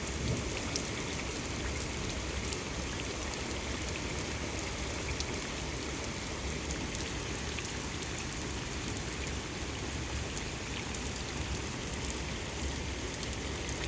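Steady rain falling, an even hiss with scattered faint ticks of drops landing.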